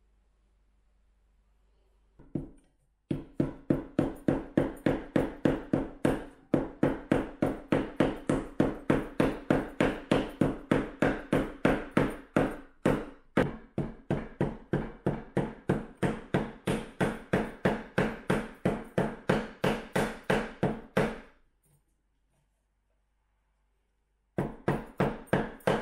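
Claw hammer tapping a nail-in glide pad into the end of a wooden chair leg: a fast, even run of light strikes, about three a second, each with a short ringing note. The strikes stop, then a second short run follows near the end.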